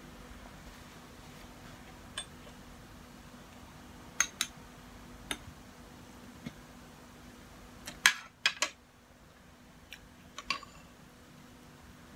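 Spoon and fork clinking against a china plate and bowl while eating: about a dozen sharp clinks at uneven intervals, the loudest a quick run of three or four about eight seconds in, over a faint steady hum.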